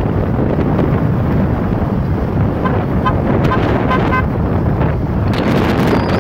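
Dune buggy driving over a sand trail: a loud, steady low rumble of engine and tyres, buried in heavy wind buffeting on the microphone. Around the middle, a short run of faint high squeaks.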